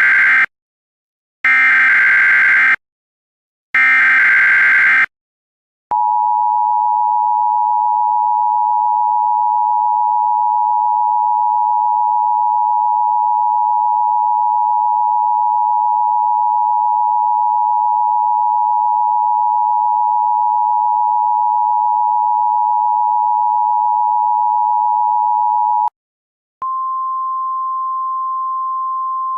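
Emergency Alert System tones: short bursts of SAME digital header data, one just ending and two more of just over a second each, then the two-tone EAS attention signal held steady for about twenty seconds. It breaks off near the end, and after a brief gap a single slightly higher steady tone begins.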